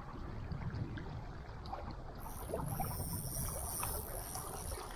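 Wind rumbling on the microphone over water noise around a fishing kayak on the river, with faint scattered knocks. A high hissing buzz comes in about two seconds in and runs for almost three seconds.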